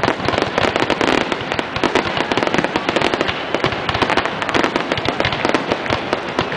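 Aerial fireworks display at full barrage: many shells bursting at once, a rapid, overlapping run of bangs and crackling.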